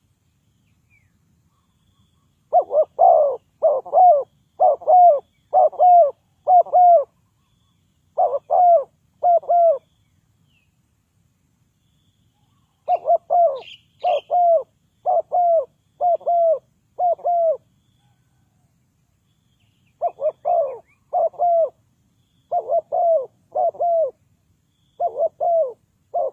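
Spotted dove cooing in three bouts of repeated low coos, each note bending slightly down in pitch, with pauses of a few seconds between bouts. Another small bird chirps faintly once about halfway through.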